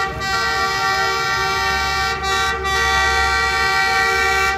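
Diesel locomotive's air horn blowing one long, loud, unbroken blast of several notes sounding together, a warning as the train approaches a busy level crossing.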